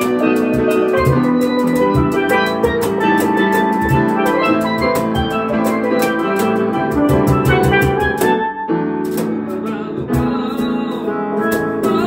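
Steelpan melody over cajón hand drumming, an upbeat ensemble groove played live, with a brief break about eight and a half seconds in before the band comes back in.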